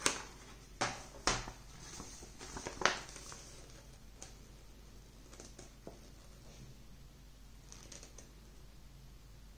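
Printed card sleeve from a 4K Blu-ray SteelBook package crackling and rustling as it is pulled free and handled: a few sharp crinkles in the first three seconds, then only faint handling noise.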